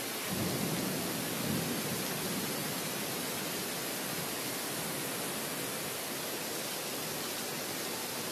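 Heavy rain falling steadily, a dense even hiss. A brief low rumble swells about half a second in and fades within a couple of seconds.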